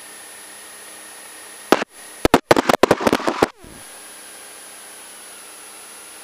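Aircraft radio and intercom feed: a steady low hiss, broken just under two seconds in by a cluster of loud static crackles and pops that lasts about two seconds.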